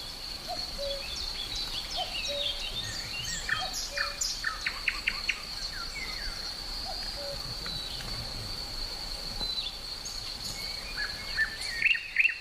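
Several songbirds chirping and calling, with quick runs of notes about four to five seconds in and the loudest calls near the end, over a steady high-pitched insect drone.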